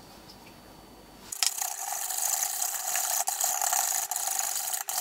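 Wire balloon whisk beating eggs and sugar in a stainless steel bowl, its wires rattling and scraping rapidly against the metal. It starts suddenly about a second and a half in and keeps going with only brief pauses.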